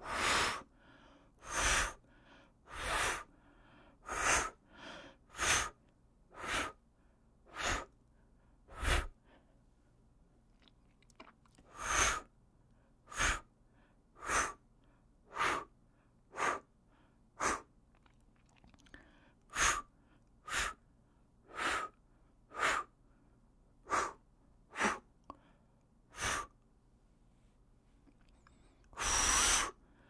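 A man blowing short puffs of air through pursed lips, about one a second, with two pauses of a couple of seconds. Near the end comes a longer, louder blow.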